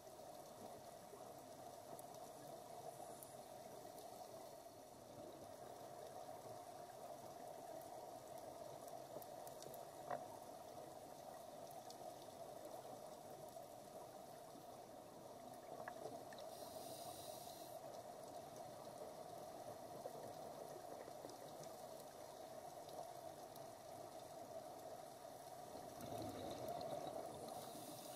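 Faint underwater ambience picked up through a dive camera's housing: a steady low hiss and hum, with a single click about ten seconds in and a brief hiss of scuba exhaust bubbles about seventeen seconds in.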